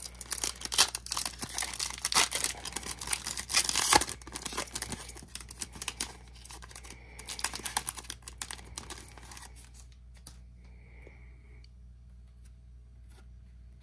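Trading-card pack wrapper being torn open and crinkled by hand. Dense crackling for about the first nine seconds, then it dies away.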